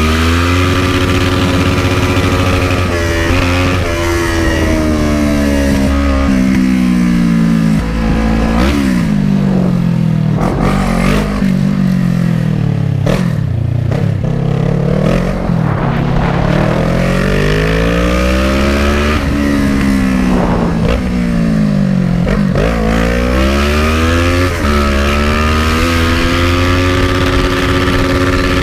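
Kawasaki ER-6n's 650 cc parallel-twin engine running loud on the move, its pitch falling and rising again several times as the rider rolls off and opens the throttle through the gears.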